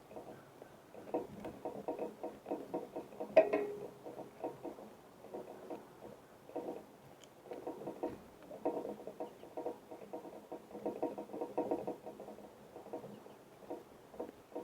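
Small birds pecking and scratching at seed on a feeder close to the microphone: bursts of rapid, light tapping, with one sharper knock about three and a half seconds in.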